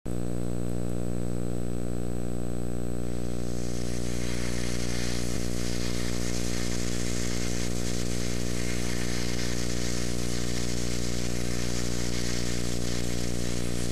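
A steady low electrical hum with many overtones, unchanging throughout, joined by an even hiss about three seconds in.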